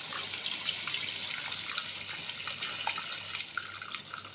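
Tamarind water being poured into a hot pan of oil-fried masala and brinjals, splashing and sizzling with a steady hiss and many small crackles and bubbles, slowly getting quieter.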